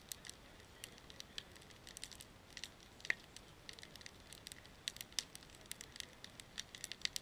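Wood fire crackling, with irregular sharp snaps and pops several times a second and one louder pop about three seconds in.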